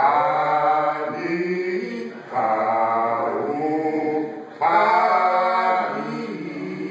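Male a cappella vocal group singing a menhaden fishermen's work song (chantey), several voices together. It comes in three strong sung phrases, each entering loudly and then held, about every two seconds.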